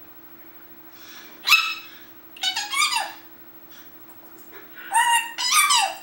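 Timneh African grey parrot vocalizing: one short, loud call about one and a half seconds in, then two runs of pitched chatter, each ending in a falling glide.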